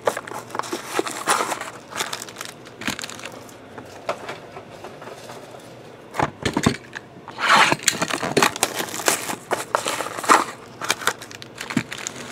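Plastic wrap crinkling and cardboard scraping as trading-card packs are opened and handled, in irregular crackles with a few sharper clicks and louder bursts in the second half.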